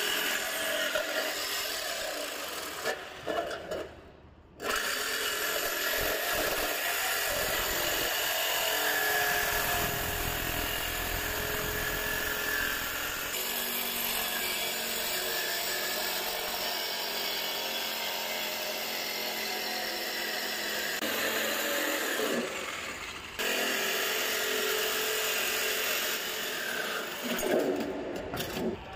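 DeWalt jigsaw cutting through galvanized sheet-steel cable trunking, its blade rasping steadily through the thin metal. The saw briefly stops a few seconds in, then runs on with another short break about three-quarters of the way through.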